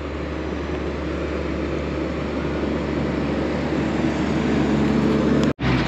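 Farm vehicle engine running steadily, its drone growing gradually louder, then cutting off suddenly just before the end.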